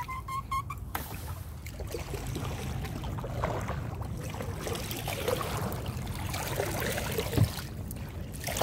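Kayak paddle dipping and dripping, water splashing and trickling around the boat over a steady low rumble. A quick run of four short beeps sounds right at the start.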